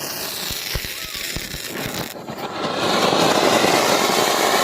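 Small table-fountain firework (meshappoo) burning: a few scattered crackles, then about three seconds in a louder, steady hissing spray of sparks.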